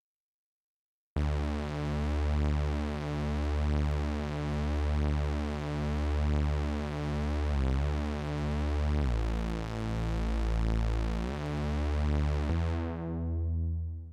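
Steinberg Simple software synthesizer in HALion Sonic 3 playing a resonant synth bass preset. It enters about a second in as a low held bass tone that swells and dips about once a second, slides to a new note near the middle, drops lower and comes back up, then fades out in its release near the end.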